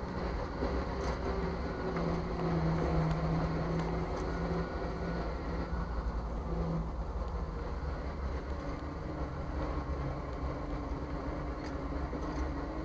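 Jeep CJ5 engine running as it drives slowly through turns, its pitch shifting a little. A few faint clicks come through about a second in and again near the end: the front-end popping on turns, which the owner cannot yet pin on the U-joints, ball joints or steering parts.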